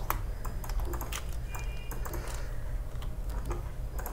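Computer keyboard keys tapped at an irregular pace, over a low steady hum.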